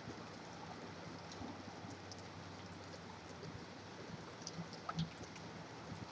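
Steady hiss of rain and distant highway traffic, with a faint low steady hum underneath and scattered drips ticking; one slightly louder tick about five seconds in.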